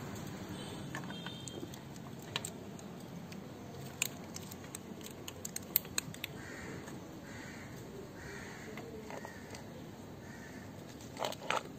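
Faint, scattered metallic clicks and light scrapes as a scooter's oil strainer screen cap is turned by hand and a socket is fitted onto it, with a few louder knocks near the end.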